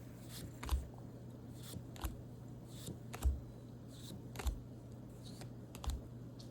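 Pokémon trading cards being flipped through one at a time from a freshly opened booster pack: a soft card swish or tap roughly every half second to second, over a faint steady hum.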